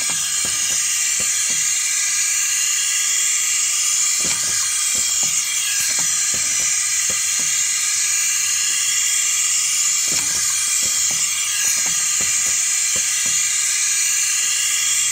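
Steady loud hiss with scattered faint clicks and knocks.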